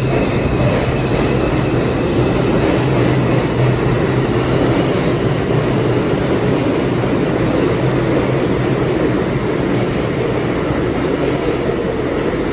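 New York City Subway 2 train, R142 cars, pulling out of an underground station and picking up speed, with a steady loud rumble and clatter of wheels on rail.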